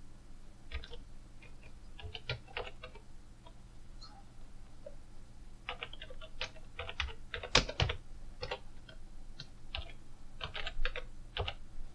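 Typing on a computer keyboard: irregular runs of key clicks with short pauses between words, and two louder keystrokes, about halfway through and near the end.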